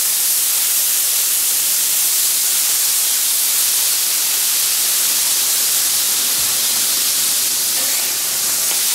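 Water squirted from a squeeze bottle onto a hot flat-top griddle, flash-boiling into steam with a loud, steady hiss as it loosens the cooked-on food for cleaning.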